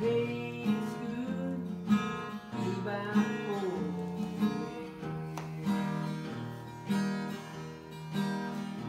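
Acoustic guitar strummed in a steady rhythm, about one chord a second, an instrumental passage between sung verses.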